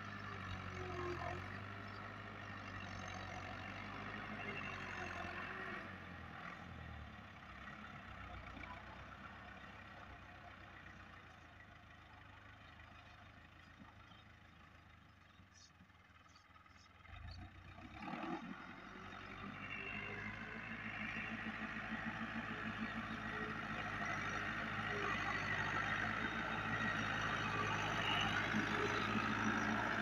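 New Holland 640 tractor's diesel engine running steadily under load while pulling a tine cultivator through the soil. It fades as the tractor moves away, then, after a sudden change about halfway through, grows louder as the tractor comes close.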